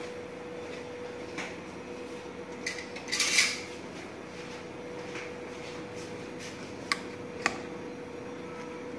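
Kitchen dish being handled on a counter: a few light clicks and taps, with a short scraping rustle about three seconds in as the loudest sound, over a steady faint hum.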